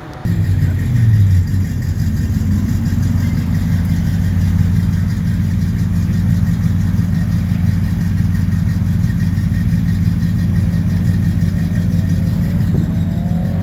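Car engine idling loudly and steadily, with one short blip of the throttle about a second in.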